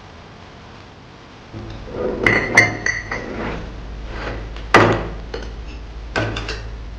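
Hard kitchenware clinking and knocking: a quick run of ringing clinks a little after two seconds in, a single sharp knock near five seconds, and a few more clinks about six seconds in. This sits over a low steady hum that starts about a second and a half in.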